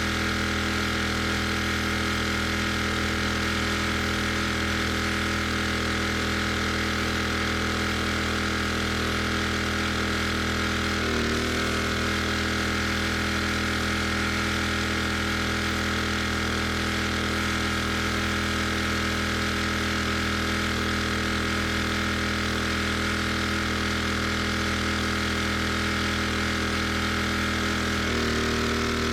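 Pressure washer's engine running steadily, with a brief shift in pitch about eleven seconds in and another near the end.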